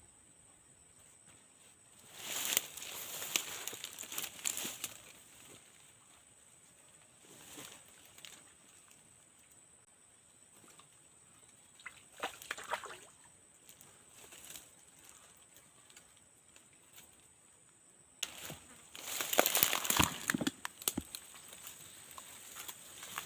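Water sloshing and splashing in short bouts: once about two seconds in, briefly around twelve seconds, and loudest near the end.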